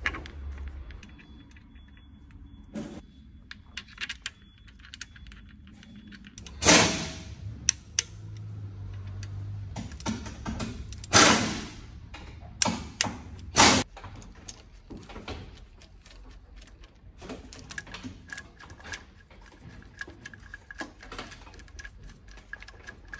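Metal hand tools and engine parts clicking and clanking as a timing chain tensioner is fitted and its bolt is run in with a ratchet. There are a few louder knocks in the middle.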